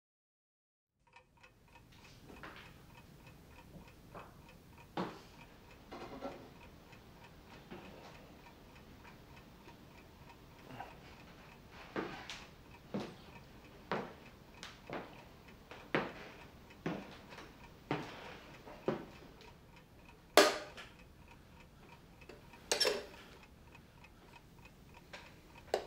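Mechanical twin-bell alarm clock ticking steadily and quietly, starting about a second in. Louder knocks come about once a second through the middle, and there are two sharp knocks with some ringing near the end.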